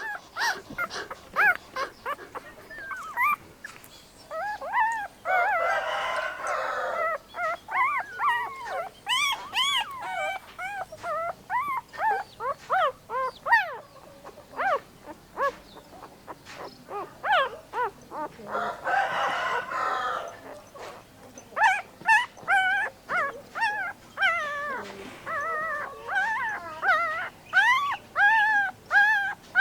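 Puppies whining and yelping: many short, high calls that rise and fall in quick succession, often overlapping, with two louder clusters of calls.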